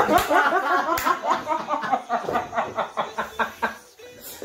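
Several people laughing hard together in quick overlapping bursts, dying away near the end, with one sharp smack about a second in.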